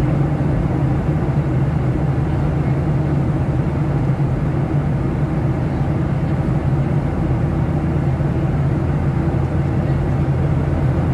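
Steady in-flight cabin drone of a Boeing 737-700's CFM56-7B turbofan engines and rushing airflow, heard inside the cabin by the wing: an even low rumble that does not change.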